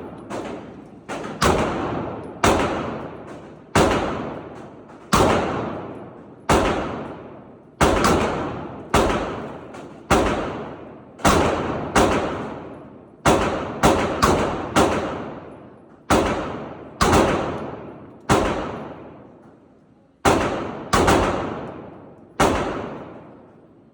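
Gunshots fired one at a time, about twenty of them at uneven intervals of roughly a second, each followed by a long echoing tail.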